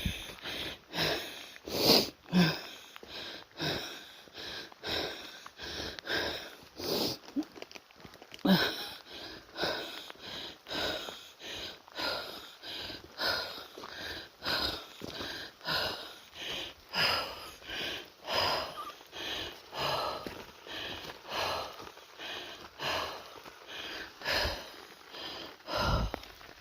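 A person breathing hard and fast close to the microphone, in quick, even in-and-out breaths, as if out of breath from hiking, over a quieter steady rain.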